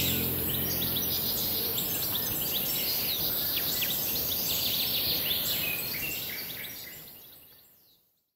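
Many small birds chirping over a steady outdoor hiss, fading out to silence near the end.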